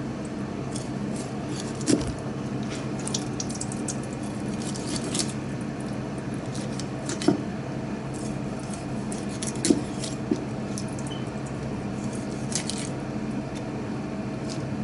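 Kitchen knife cutting through the heads of raw mackerel on a plastic cutting board: wet squishing and scraping, with a few sharp clicks of the blade about 2, 7 and 10 seconds in, over a steady background hum.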